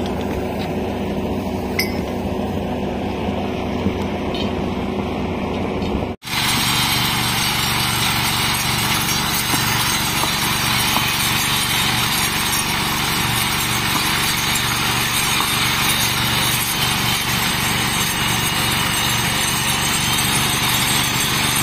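A portable rail grinder grinding down the fresh weld on the steel rail head: a dense, harsh grinding hiss over a steady engine hum. Before it, for about the first six seconds, an engine hums with a few metallic clinks of tools against the rail, then the sound cuts off briefly.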